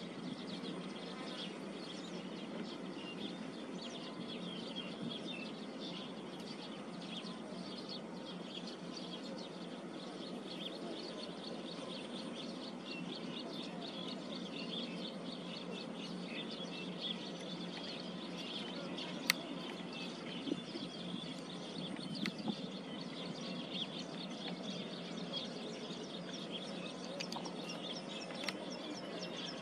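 Countryside ambience: a steady hiss with dense, faint chirping throughout, and one sharp click about nineteen seconds in.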